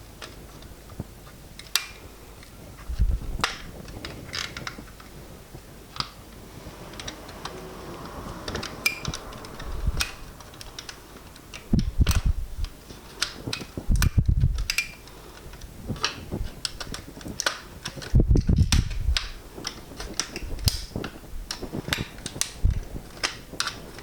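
Irregular plastic clicks, taps and knocks of a BMW instrument cluster being taken apart by hand, as housing clips are worked and parts are handled, with several heavier thumps, the loudest about halfway through.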